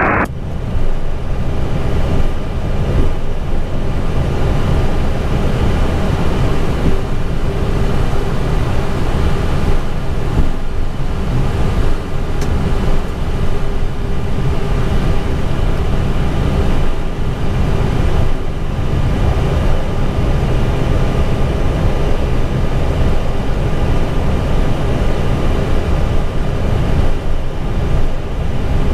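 Steady cockpit noise of an Airbus A320 taxiing: a constant hum from the idling engines and the cockpit fans, over an uneven low rumble from the wheels rolling along the taxiway.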